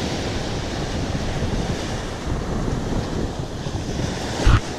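Ocean surf washing on the beach with wind buffeting the microphone, and a short thump near the end.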